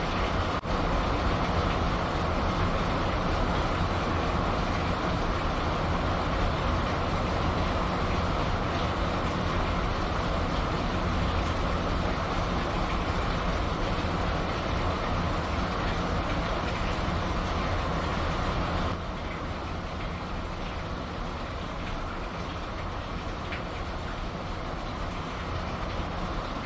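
Rain falling, heard over the steady low rumble of a ship's engine. The sound steps down a little in level about 19 seconds in.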